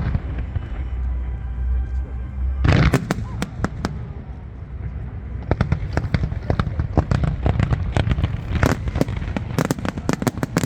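Fireworks bursting: a loud bang about three seconds in, then a dense run of rapid crackling bangs from about halfway on.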